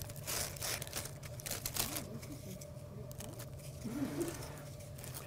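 Plastic wrapper of a graham cracker sleeve crinkling and rustling as crackers are pulled out. It is busiest in the first two seconds, then comes in a few softer rustles.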